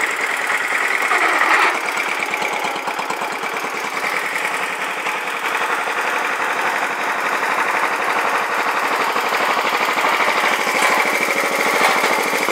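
Wheel Horse 701 garden tractor's freshly swapped-in Kohler K181 single-cylinder engine running steadily as the tractor is ridden, with rapid, even firing pulses. It gets a little louder about a second in and again near the end.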